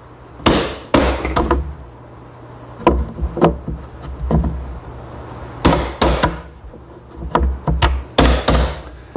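Hammer striking the plunger of a spring-loaded corner chisel, driving its blade into wood to square the corners of a hinge mortise. About a dozen sharp knocks in irregular clusters, some with a brief high metallic ring.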